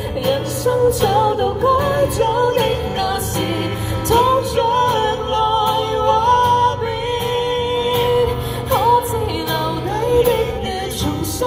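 A woman singing a slow ballad with guitar accompaniment, holding long notes with vibrato.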